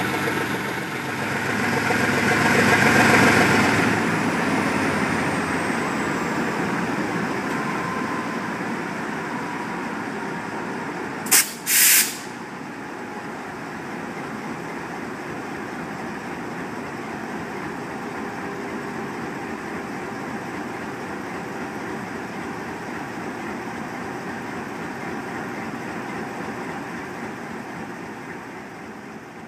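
GE U23B diesel locomotive's turbocharged V12 engine running loud, then dropping to a lower, steady run about four seconds in as a high whine slides down in pitch. About eleven seconds in there are two short, loud bursts of air hiss from the locomotive's air system. The engine sound fades out at the end.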